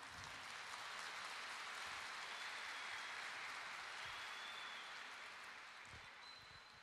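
An audience applauding in a hall, a steady patter of many hands that dies away over the last couple of seconds.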